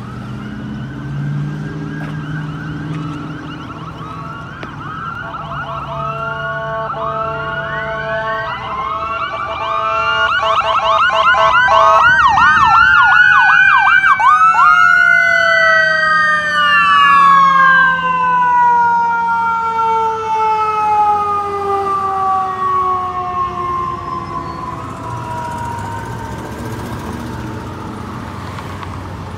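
Sirens of an ambulance and a fire department squad in a rapid yelp. They grow louder as the vehicles approach, are loudest about halfway through, then drop in pitch and fade as the vehicles pass.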